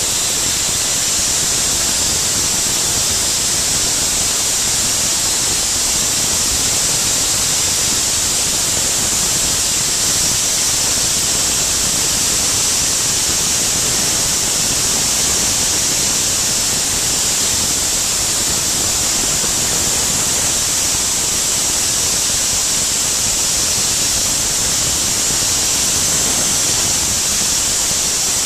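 Soda Works Buster Blaster 100 soda blaster spraying baking soda on compressed air from its blast nozzle: a loud, steady hiss, strongest in the high range, that does not let up.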